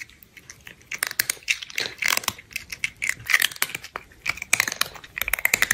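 Crunchy eating sounds: irregular crunches and crackles of chewing, coming in clusters with short pauses between them.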